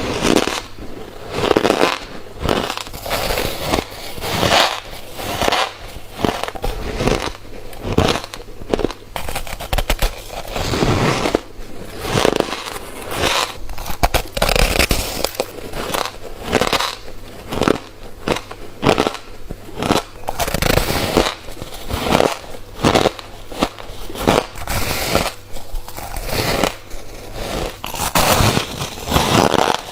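Close-up mouth sounds of someone biting and chewing crisp refrozen freezer frost: a continuous run of crunches and crackles, about one or two a second.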